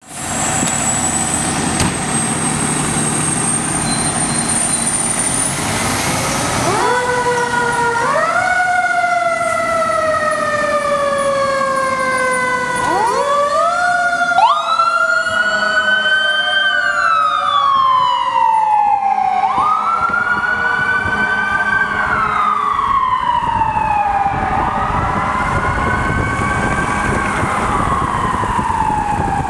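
Fire apparatus sirens as a ladder truck, a pumper engine and an ambulance pull out on an emergency response. A siren starts about seven seconds in and repeatedly winds up quickly and falls away slowly. More sirens overlap through the second half, over the trucks' diesel engines, which run alone at the start.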